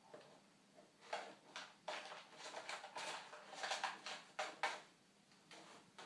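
A cat rummaging at a packet of Whiskas cat treats on a kitchen counter: a run of irregular rustling, crinkling and crunching sounds from about a second in, dying away after nearly five seconds.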